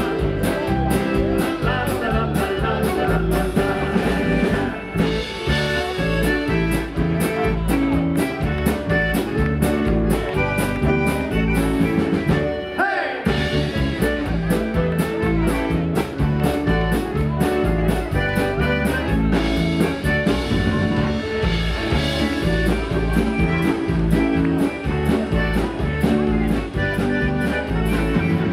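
Live polka band playing a lively tune on accordion, electric keyboard, electric guitar and drum kit, over a steady oom-pah bass beat.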